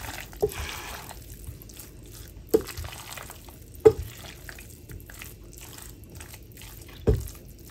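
A spatula stirring cooked pasta through a thick, creamy sauce in a saucepan: soft wet squelching, with four short knocks of the spatula against the pan.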